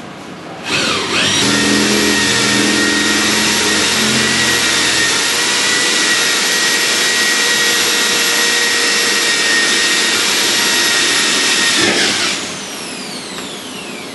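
Corded electric drill running steadily at full speed as it bores through a metal mounting plate, then released near the end, its whine falling as the motor spins down.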